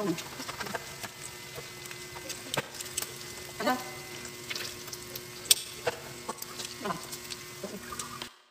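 Pork belly frying in an Edmark SmartPan: fat sizzling with frequent sharp pops and crackles, and metal tongs clicking against the pan as the pieces are turned. A few short falling honk-like cries sound in the background, and the sound cuts off just before the end.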